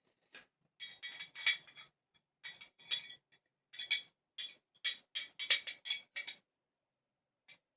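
Irregular metallic clinks and scrapes from an antique Chinese fish padlock: its key and sliding bolt rattle as the key pushes the bolt out of the lock body. About a dozen short, ringing clicks come in uneven clusters and stop shortly before the end.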